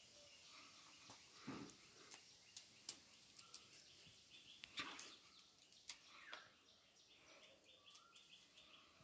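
Quiet ambience with faint bird chirps and a few soft, scattered clicks.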